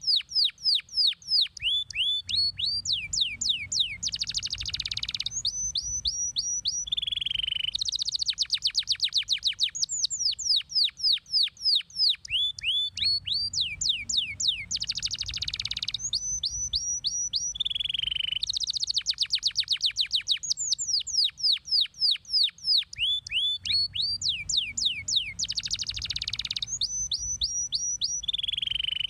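Domestic canary singing: fast trills of quick downward-sweeping notes, buzzy rolls and short runs of rising chirps, with the same song sequence coming round about every ten seconds.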